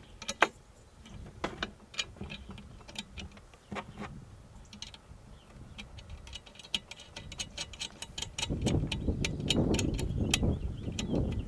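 Light metal clicks and taps from hands fitting a header height sensor and its wiring harness connector onto a steel mounting bracket, with the bolts and nuts knocking against it. A low rumble joins in about eight seconds in.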